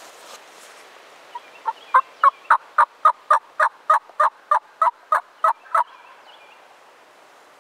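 Turkey yelping: a long run of about sixteen evenly spaced yelps, about three or four a second. The first few are soft and the rest are loud and close.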